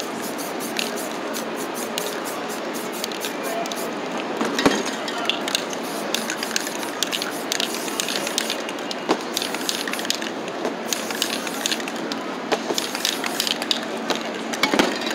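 Aerosol spray-paint cans hissing as paint is sprayed onto a canvas, with many small clicks throughout and two sharp knocks, about five seconds in and near the end.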